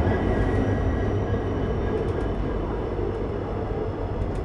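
A WDP4D diesel locomotive passing close on the next track, its engine running, then its coaches rolling by. The heavy low engine hum eases at the start as the locomotive goes past, and the steady train noise slowly fades.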